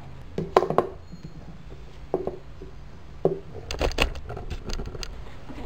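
A few sharp knocks and clicks of small hard objects being handled and set down on a hard surface: two loud ones about half a second in, single ones later, and a quick cluster near the end.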